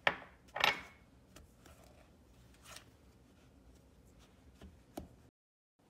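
Spoon or utensil knocking and scraping against a mixing bowl while dry baking ingredients are mixed: two sharp knocks at the start about half a second apart, the second the louder, then a few fainter taps. The sound cuts off abruptly near the end.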